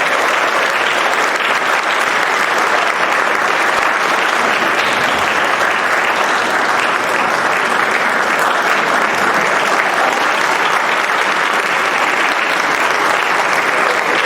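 Theatre audience applauding steadily at the final curtain.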